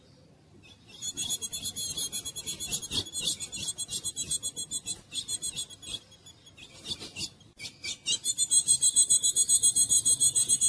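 Female ultramarine grosbeak (azulão) giving a fast run of harsh, high, rasping call notes. The notes pause briefly just past halfway, then come back denser and louder near the end.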